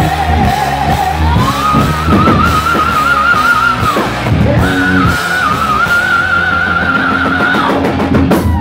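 Heavy metal band playing live in a hall, with distorted guitars, bass and drums under a high lead line. The lead line is held in long notes with vibrato; it climbs about a second in and breaks off briefly around four seconds.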